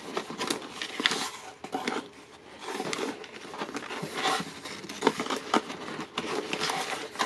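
Cardboard box and paper packaging being handled and rustled, with irregular small clicks and taps.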